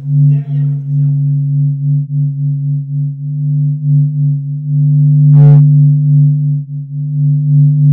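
A loud, steady electronic drone of a few low held tones, wavering slightly in loudness, with a short buzz about five and a half seconds in.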